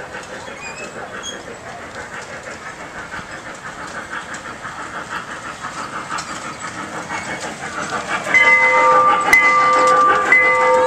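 Wattman trackless train approaching with a fast rhythmic chugging clatter that grows steadily louder. About eight seconds in, a loud chord-like train whistle starts, several tones together, the highest one in short repeated blasts.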